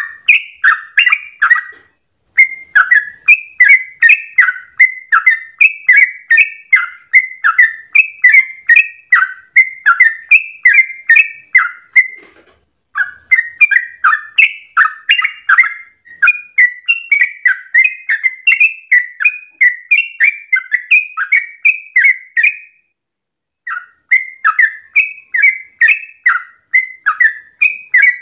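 Yellow-vented bulbul (trucukan) singing its long rapid 'ropel' song: a fast, unbroken run of chattering notes, about three a second. It breaks off briefly about two seconds in, again near the middle, and again past three-quarters of the way through.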